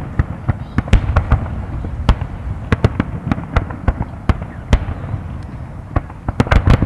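Fireworks display: aerial shells bursting in a rapid, irregular string of sharp bangs over a steady low rumble, with a quick cluster of bangs near the end.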